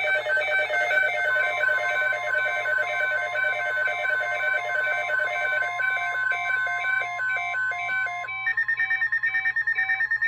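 Synthetic electronic alert tones: a rapid, stepping multi-tone beeping pattern with a steady tone running under it, switching a little after eight seconds to a fast pulsing beep of about nine beeps a second.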